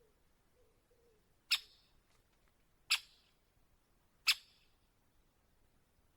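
Great spotted woodpecker giving three sharp, short single 'kik' calls, about a second and a half apart.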